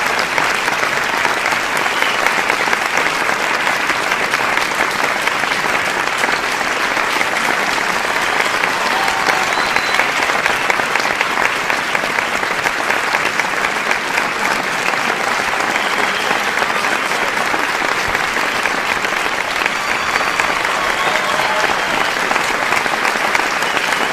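A large audience clapping steadily and densely, with occasional shouts and whistles from the crowd rising above the applause.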